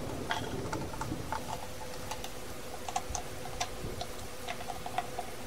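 Small hand tools clicking and tapping against the parts of a toy pistol as it is reassembled: light, irregular ticks a few times a second, over a faint steady hum.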